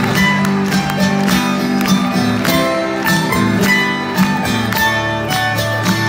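Bluegrass band playing an up-tempo number on acoustic guitars, mandolin and upright bass: fast picked and strummed notes over a steady plucked bass line.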